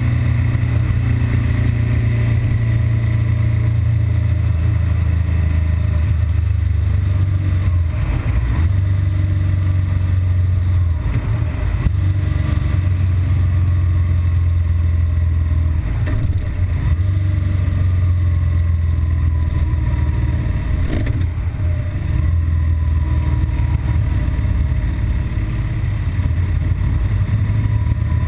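BMW R1200GS Adventure's boxer-twin engine running as the bike is ridden, with a steady low rumble that briefly dips a few times.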